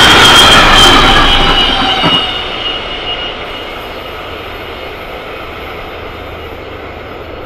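Container freight train's last flat wagons rolling past, wheels squealing in steady high tones over the rumble of the wheels on the rail. About two seconds in the end of the train passes with a last knock, and the sound drops sharply, fading off as the train moves away.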